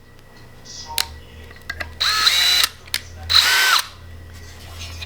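A power drill run in two short bursts, each spinning up with a rising whine that then holds steady. There is a sharp click about a second in.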